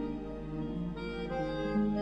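Slow background music with held notes that change every second or so.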